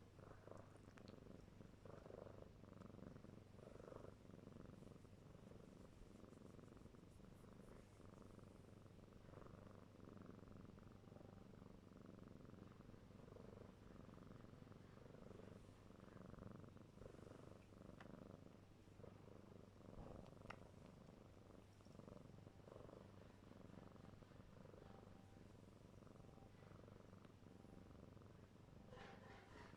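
Faint purring of a four-month-old kitten, the kind of purr that goes with its suckling and kneading habit.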